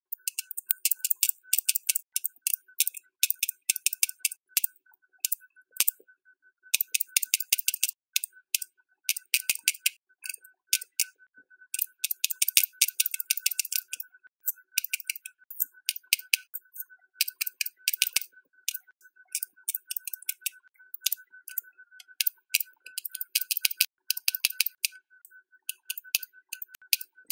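Aquabeads bead dispenser pen clicking and rattling as it drops beads one after another onto the plastic pegboard tray. The clicks come in quick runs with short pauses between them.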